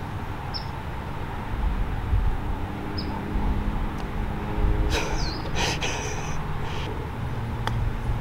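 Birds calling outdoors: short, high, falling chirps, with a burst of busier calling and chatter about five seconds in, over a low steady hum.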